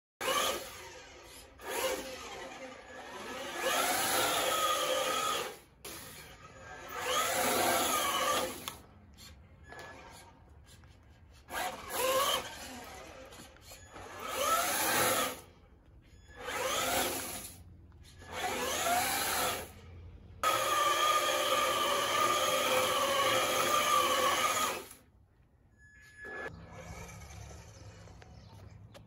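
Electric RC car's motor and drivetrain whining through short bursts of throttle, about eight, the pitch rising and falling with each, then a longer steady run of about four seconds before it drops away near the end.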